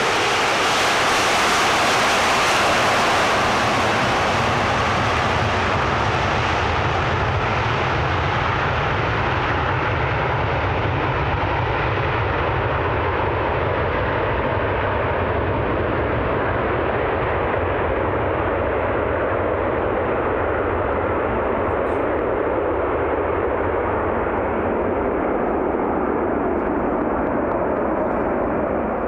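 Airbus A330 twin-engine jet airliner on its takeoff roll, both turbofan engines at takeoff power. The loud jet noise passes close at first, then its high hiss fades from about five seconds in, leaving a steady low rumble as the aircraft moves away down the runway.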